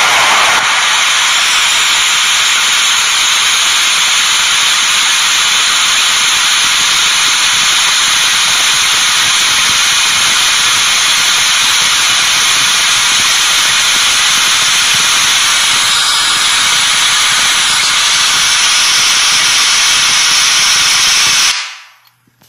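Selenium JBL D220 Ti one-inch titanium compression driver playing pink noise very loud, a steady high-pitched hiss with little low end, as it is band-limited by a crossover. It measures about 130 dB peak at 40 cm and cuts off suddenly near the end.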